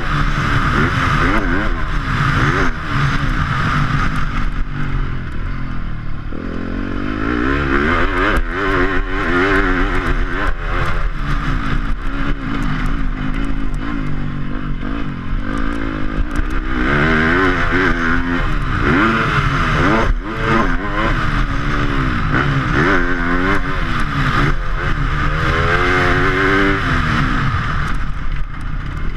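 Yamaha YZ250F four-stroke single-cylinder motocross engine under hard riding, its revs climbing and dropping over and over as the rider accelerates, shifts and backs off around the dirt track, with some clatter from the bike over the ruts.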